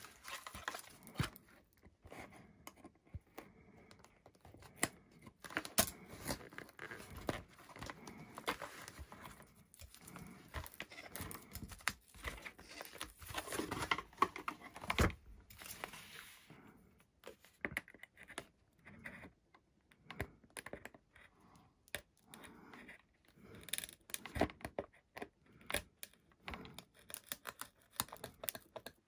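Irregular small clicks, taps and scraping, with stretches of rustling, from hands and a pointed tool working a micro servo and its wires in a foam wing's servo bay.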